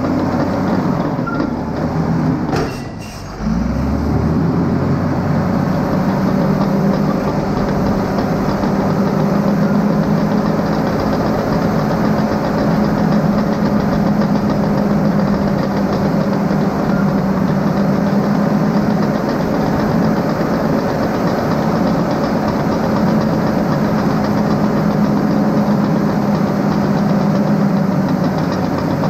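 Bulldozer's diesel engine running hard under load as it pushes a log truck up a soft dirt road. It eases off briefly about three seconds in, then settles back to a steady, even drone.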